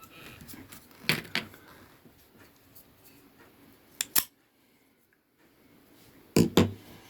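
Sharp clicks and light knocks of a budget folding knife with a plastic handle being handled and turned over: a few about a second in, a quick pair about four seconds in, and a louder pair near the end.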